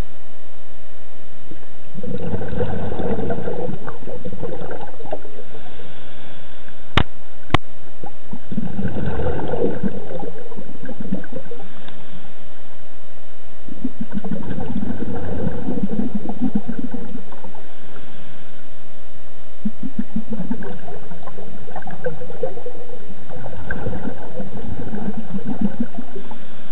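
Scuba diver breathing through a regulator underwater: bubbly, gurgling exhalations in bursts every five or six seconds. Two sharp clicks sound about seven seconds in.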